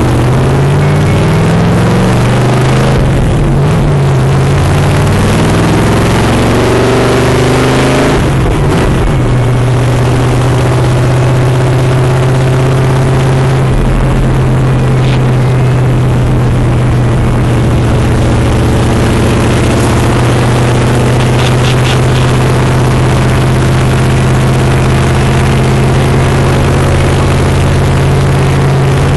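A loud car engine under way: its pitch rises over the first eight seconds or so as the car accelerates, then it drones at a steady pitch while the car cruises.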